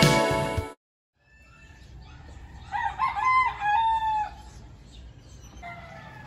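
Music cuts off suddenly, then a rooster crows once, a call of about a second and a half, and starts another crow near the end.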